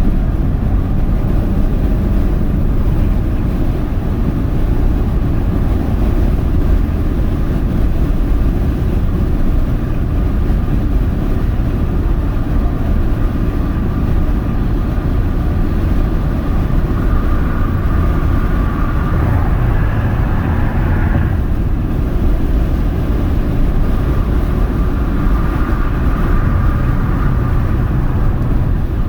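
Cabin noise of a 2022 Mercedes-AMG GLA 35 at highway speed with the panoramic roof open: a loud, steady rumble of wind and road noise over its turbocharged four-cylinder engine. A higher tone rises slightly a little past halfway, cuts off suddenly, and returns near the end.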